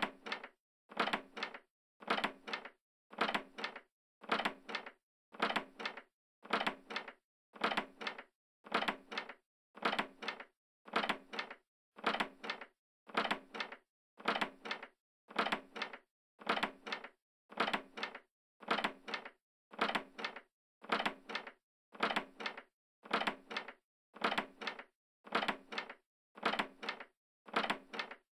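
A door opening, the same short sound repeated about once a second with silence between.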